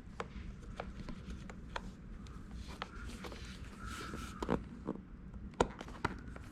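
Scattered light clicks and taps of a small plastic console-lid latch and its spring being handled and fitted into the lid, with the sharpest click about five and a half seconds in.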